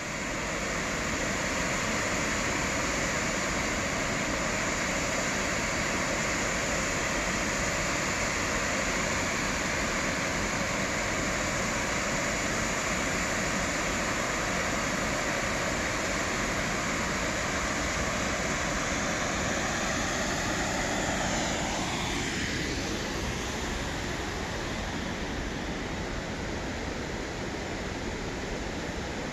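Steady rush of a waterfall pouring over a wide rock ledge into a pool. About three-quarters of the way through, the tone of the rush shifts and it gets a little quieter.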